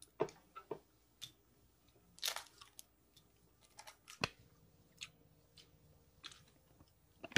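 Hard-boiled egg being peeled by hand: small scattered crackles and clicks of eggshell breaking and coming away, with a sharper click about four seconds in.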